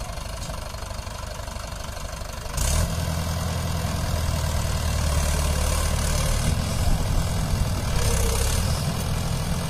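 Mahindra 585 DI tractor's four-cylinder diesel engine running as it pulls a trolley heaped with soil. About two and a half seconds in, the engine gets clearly louder and stays that way.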